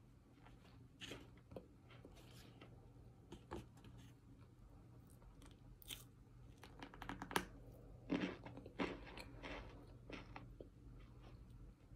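Biting and chewing compressed cornstarch chunks close to the mouth: short dry crunches and chewing, densest and loudest a little past the middle.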